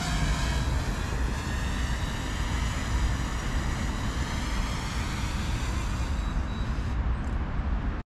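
Steady road traffic noise from cars on the surrounding dual carriageway and roundabout, cutting off abruptly near the end.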